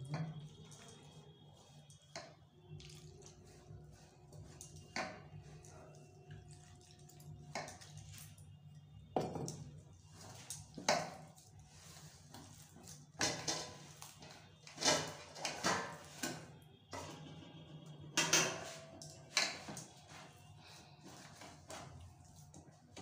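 Hands mixing and kneading maize flour with water in a steel bowl: a short pour of water into the flour, then irregular clinks and knocks against the metal bowl, over a low steady hum.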